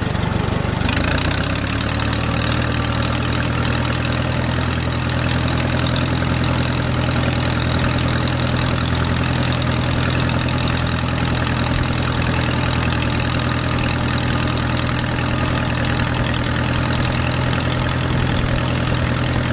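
Case 430 tractor engine running steadily while the tractor drives. About a second in, the engine note shifts and the sound grows brighter, then it holds steady.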